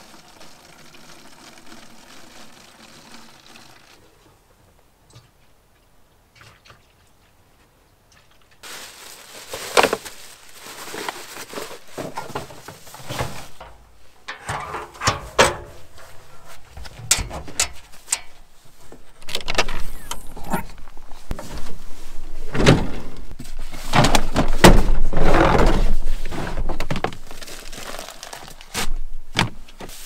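Fuel poured from a jug into a Webasto diesel heater's tank for a few seconds, then a short lull. After that comes a long run of knocks, clicks and crinkling plastic as gear is handled and plastic bags are rummaged through in a storage box. It is loudest and most crowded about two-thirds of the way through.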